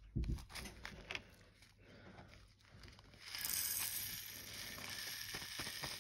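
Small craft pieces being handled at a table: a low thump right at the start and scattered clicks. From about three seconds in comes a continuous rattling hiss of many small pieces shifting together.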